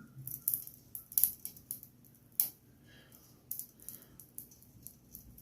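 Scattered light metallic clicks and taps of hand tools being handled and fitted to a stuck exhaust fastener, a few sharper clicks among them.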